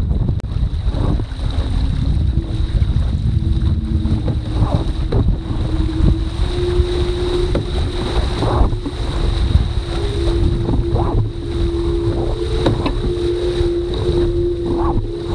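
Wind buffeting the microphone and water rushing and spraying along the hull of a foiling sailing dinghy as it accelerates from a standstill, with a humming tone that starts a couple of seconds in and climbs in pitch as the boat speeds up.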